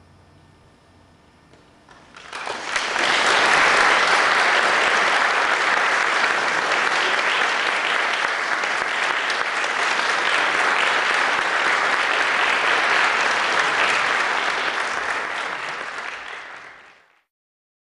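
Audience applauding: the clapping starts about two seconds in, swells quickly and holds steady, then tapers and cuts off shortly before the end.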